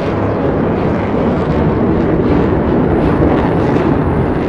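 Loud, steady rushing roar of jet engine noise, growing a little louder toward the middle.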